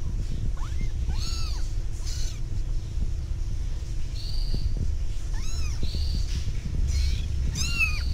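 Young kittens mewing: repeated short, high-pitched cries, several overlapping, over a steady low hum.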